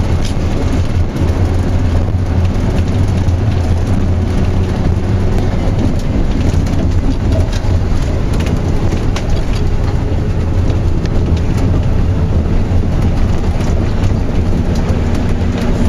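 Steady low engine drone and tyre noise of a tour coach driving on a gravel road, heard from inside the cabin, with a constant crackle of small stones under the wheels.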